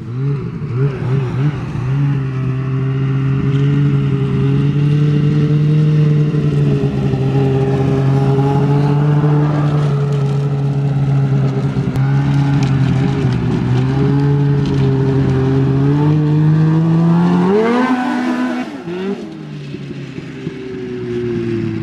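Ski-Doo snowmobile's two-stroke engine running through an aftermarket race can exhaust as the sled is ridden. It holds a steady note for most of the time, revs up sharply near the end and then drops away. The tone is deeper than stock but not very loud.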